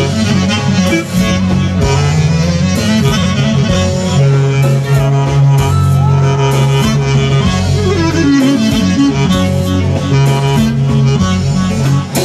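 Live Greek folk band playing an instrumental passage, a violin leading with gliding melody notes over a steady beat.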